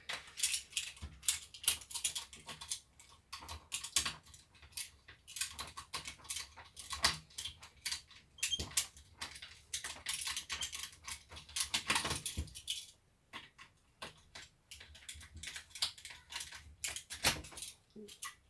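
Irregular small clicks and light rattles of the plastic housing and screws of a cordless drill being handled and fitted together during reassembly. The clicking is busiest for most of the stretch and thins out after about thirteen seconds.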